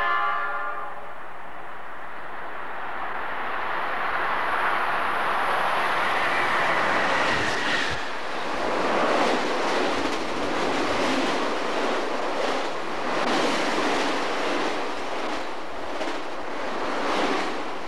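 An Amtrak E60 electric locomotive and its train of stainless-steel Heritage passenger cars passing close at speed. The tail of a horn blast fades in the first second, then a rushing rumble builds as the locomotive comes by, with a brief high whine about six seconds in. After that come repeated clicks of the wheels over the rail joints as the cars go past.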